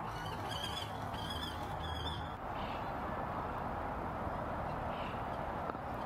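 Common kestrel calling: a few short, high-pitched calls in the first two seconds, then only steady background noise.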